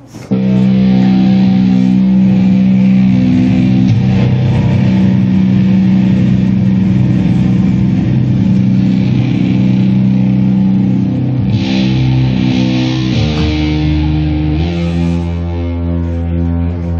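Electric guitar through an amplifier sustaining long, droning held notes with no drums, shifting to new pitches a few times, as the intro of a song.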